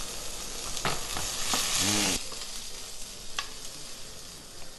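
Sliced porcini (boletus) mushrooms sizzling in oil in a frying pan as they are stirred, browning and giving off their water. The sizzle swells louder about two seconds in, and there is a sharp click a little later.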